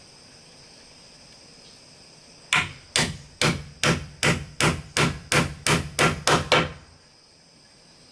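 About a dozen quick, sharp blows of a hand tool striking wood or bamboo, coming slightly faster toward the end, over a steady high drone of insects.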